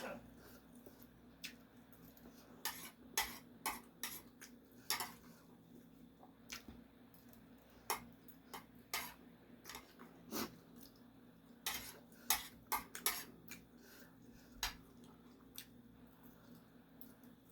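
Eating utensils clinking and scraping against a bowl of instant noodles: light, sharp clicks at irregular intervals, thickest in the middle of the stretch.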